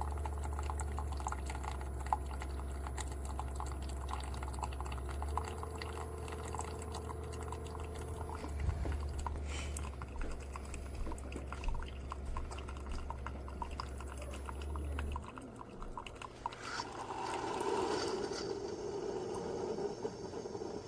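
Single-serve coffee maker brewing: a steady low hum with liquid pouring and dripping into the cup. The hum stops about fifteen seconds in, followed by a short burst of noise near the end.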